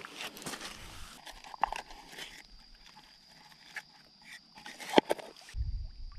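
Close handling noises of hands working with a stone and a plastic box on gravel: crunching and scattered sharp clicks, with one loud knock about five seconds in. A faint steady high tone runs through the second half.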